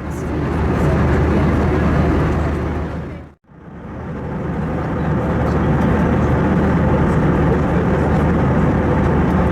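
Steady engine and airflow noise inside the cabin of an Airbus A321, with a low hum underneath. It fades out and back in about three and a half seconds in.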